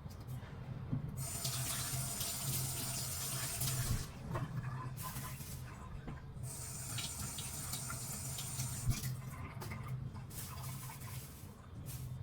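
Water running from a tap into a sink in two stretches of about three seconds each, with small knocks and clicks between them.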